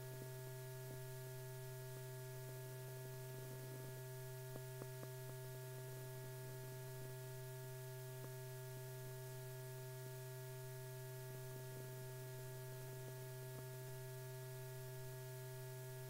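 Steady electrical mains hum, a low tone with fainter higher tones over it, with a couple of faint clicks about four and a half seconds in.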